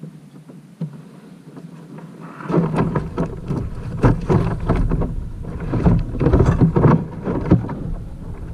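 Irregular knocks, bumps and scrapes on a plastic sit-on-top kayak's hull, carried through the hull to the mounted camera as a deep rumble, as the angler shifts and reaches around in his seat. They start about two and a half seconds in and keep going.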